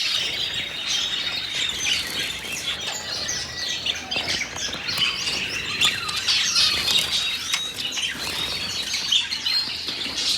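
A chorus of many small birds chirping and twittering at once, a dense, steady chatter of short high calls with no pause.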